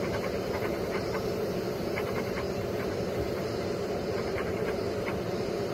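A steady low hum with no speech, with faint short chirps scattered irregularly through it.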